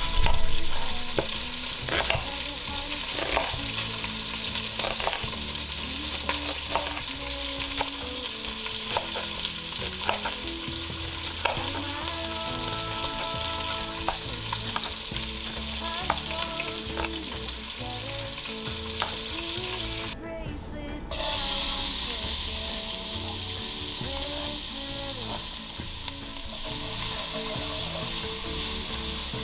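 Chef's knife chopping an onion on a wooden cutting board, a sharp knock with each cut, for about the first twenty seconds. Then, after a short break, diced onion sizzles in a pot as it is stirred, a steady hiss.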